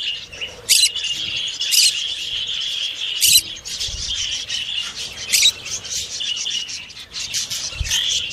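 Parrots chattering steadily, with a loud short screech every second or two.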